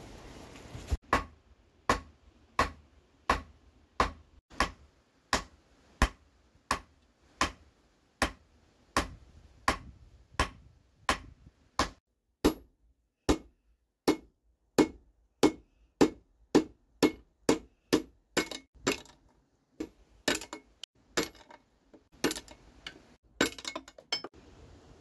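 Hand hammer striking hot steel in a long run of sharp metallic blows, each with a brief ring: evenly paced at about one every 0.7 s at first, then quickening and growing irregular in the last several seconds.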